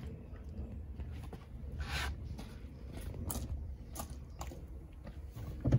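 Rustling, light clicks and knocks from someone moving about inside a van's cab, with a louder thump near the end.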